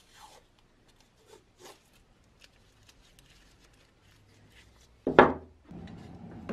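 Masking tape being pulled off the roll and pressed around small metal parts: faint rustles and short rips. About five seconds in comes a brief loud thump, followed by a steady low noise.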